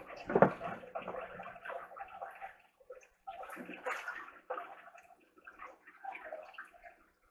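Water sloshing and splashing in a pet turtle's tank in uneven bursts with short pauses, as a turtle is lowered back in and a hand moves about in the water.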